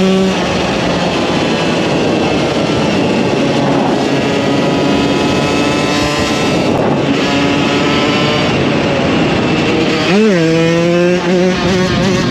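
A KTM 125 EXC supermoto's single-cylinder two-stroke engine being ridden. It is held at high revs at first, then comes off the throttle and coasts with slowly falling pitch under a rushing noise. About ten seconds in there is a quick rev blip, and it pulls steadily again near the end.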